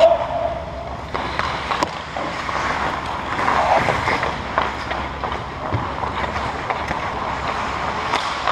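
Ice hockey skates scraping on the rink ice, with scattered sharp clicks of sticks and pucks; a louder scrape comes about three and a half seconds in.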